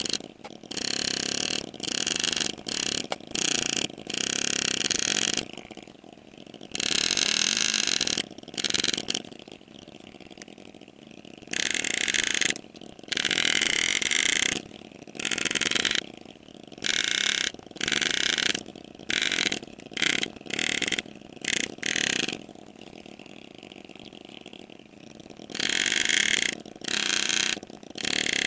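Engraving handpiece buzzing in short, irregular bursts, from a fraction of a second to about a second and a half each, as the graver cuts scrollwork into a sterling silver ring. A steady low hum runs underneath, and the bursts stop for a few seconds near the end.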